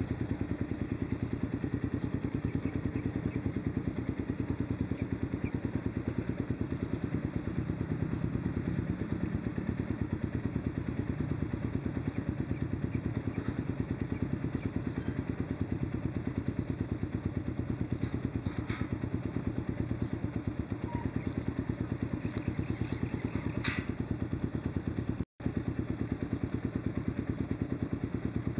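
An engine idling steadily with a rapid, even throb, cutting out for an instant about three-quarters of the way through.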